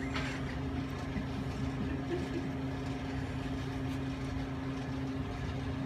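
A steady low mechanical hum, like a running motor or engine, holding an even pitch.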